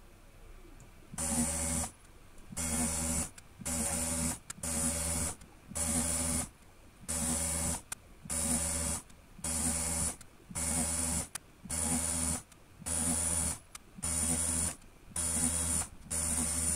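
Automated PCB drilling machine working from hole to hole: its small DC-motor drill runs in short bursts, about one a second, each a steady whining hum with a high hiss, stopping briefly between holes.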